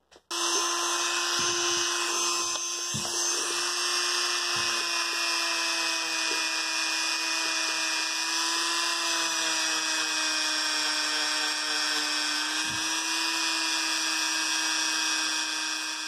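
Handheld rotary tool starting up about a quarter second in and running at a steady high speed, its small cylindrical sanding/buffing bit held against the tiny brass-and-steel folding knife to smooth and polish it. A steady whine with a few faint knocks from handling.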